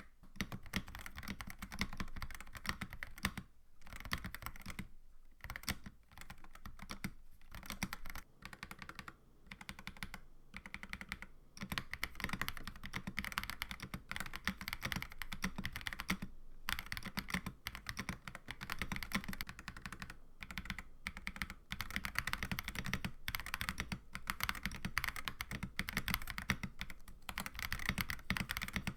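Fast typing on a GamaKay LK75 mechanical keyboard fitted with GamaKay Planet series switches: linear Mercury, then linear Jupiter, then tactile Venus. It is a rapid, continuous stream of keystroke clacks, broken by a few short pauses.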